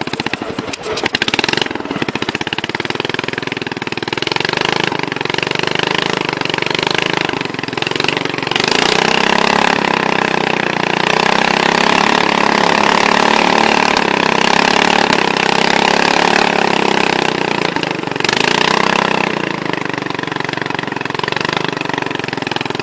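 Racing lawn mower engine running, revving up about eight seconds in, holding a higher speed for about ten seconds, then dropping back. This is the run after which the owner takes the rear drive belt to be slipping.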